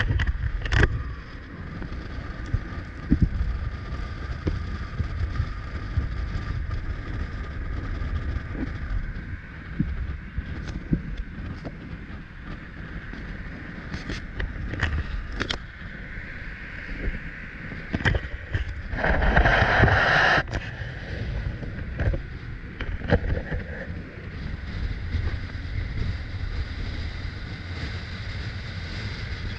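Wind buffeting a camera microphone held out of a moving taxi's window, over the car's road and engine noise, with scattered knocks from the handheld camera. About two-thirds of the way in, a louder rush lasts a second or so.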